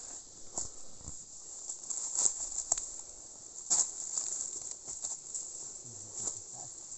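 Footsteps crunching through dry leaf litter and twigs, irregular crackles and snaps, over a steady high drone of insects.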